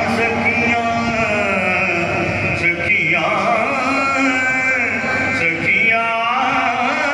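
A man's unaccompanied voice singing a Saraiki kalam, a Sufi devotional poem, in long, held chanting lines that bend in pitch, with two short breaks for breath.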